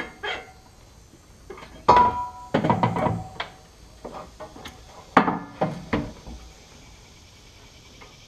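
Steel roll cage tubes clanking and knocking against the car body as the cage is worked into place, in two bunches of hits about two and five seconds in, some with a short metallic ring.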